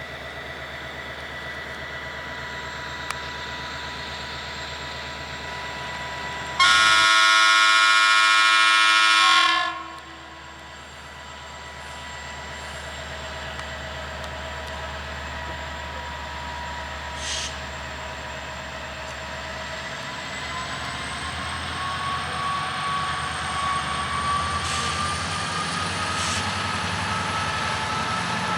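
Romanian GM diesel-electric locomotive running, with a loud multi-tone horn blast of about three seconds some seven seconds in. Later the engine and traction whine rise in pitch as the locomotive powers up.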